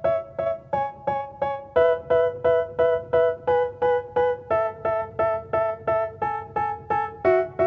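Electric piano music: a short chord struck over and over, about four to five times a second, moving to a new chord roughly every second.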